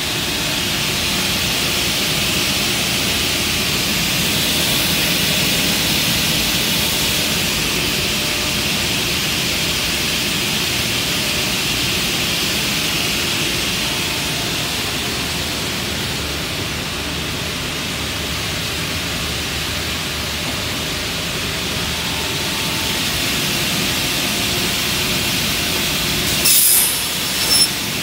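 Salvamac Classic 50 crosscut saw running with a steady, loud hiss of spinning blade and dust extraction. Near the end, two short loud bursts as the blade cuts through the timber board.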